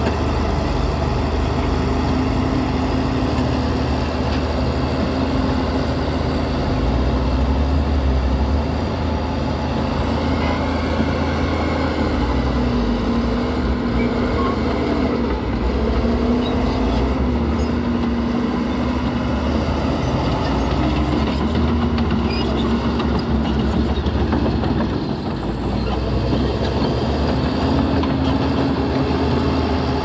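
Heavy diesel earthmoving machine working: its engine runs loud and continuous, the engine note stepping up and down several times as the revs change.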